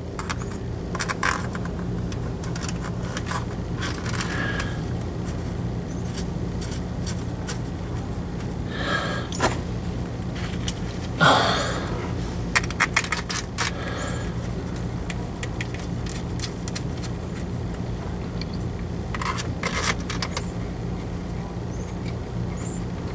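Scattered clicks, taps and scrapes of a new transmission filter and its screws being fitted to a 44RE automatic transmission's valve body with a screwdriver, the loudest scrape about eleven seconds in, over a steady low hum.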